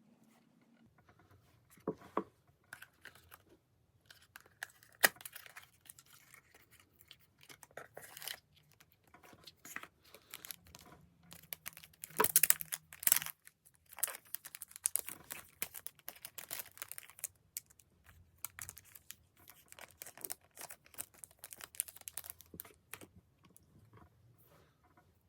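Packaging being torn open and crinkled by hand, in irregular crackling and tearing strokes, with one sharp click about five seconds in and the loudest tearing about halfway through.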